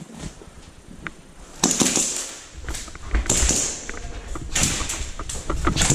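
Footsteps scuffing on a gritty floor and clothing and gear rustling close to the microphone, a run of irregular scrapes and low thuds starting about a second and a half in.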